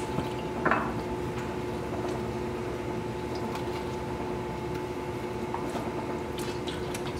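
Raw leg of meat being rubbed with salt and turned over in salted water in a steel tray: faint squelching and small splashes, with a short knock under a second in, over a steady hum.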